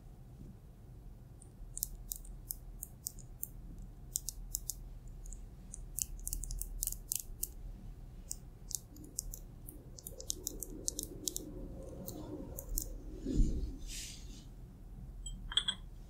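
Fingernails and fingertips lightly scratching and stroking over a person's hands and a terry-cloth towel, in many short, crisp scratches. There is a soft bump with a brushing hiss about three quarters of the way through, and a brief small clink near the end.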